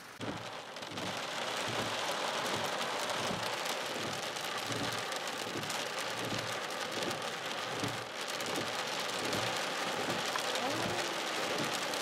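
Steady rain-like hiss, dense with fine crackle, cutting in suddenly.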